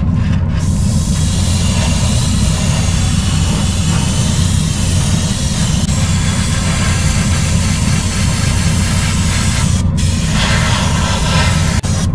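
Airbrush spraying paint with a steady hiss over the constant low hum of a spray booth's extraction fan; the hiss breaks off briefly about ten seconds in.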